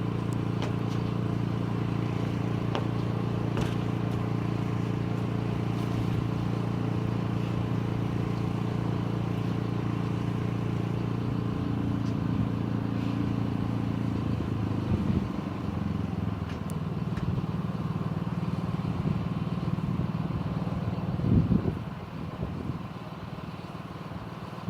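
A steady low mechanical hum that changes pitch and turns uneven about two-thirds of the way through, with a brief louder noise near the end.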